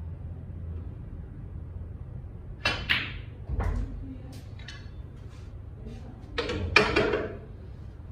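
Snooker balls: the cue tip strikes the cue ball with a sharp click, another click follows a moment later, and a louder clattering knock of balls comes about six and a half seconds in.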